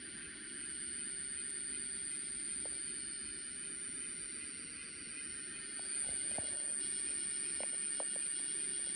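Motors of a pair of DC-powered HO scale Athearn SW7 model diesel switchers whining as they run, with the wheels rolling on the track and a few light clicks. A steady high-pitched tone sits over it. The sound gets louder about six seconds in.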